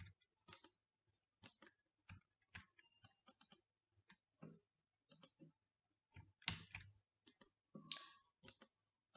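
Faint, irregular computer mouse clicks, some in quick pairs, as text in a dialog box is clicked to select it.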